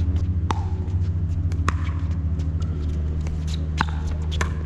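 Pickleball rally: paddles hitting the hard plastic ball with sharp pops, four clear hits at uneven gaps, over a steady low mechanical hum.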